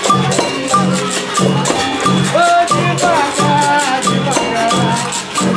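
Capoeira roda music: a berimbau played with a caxixi basket rattle shaking in time, over a steady low beat about every half second, with voices singing over it in the middle.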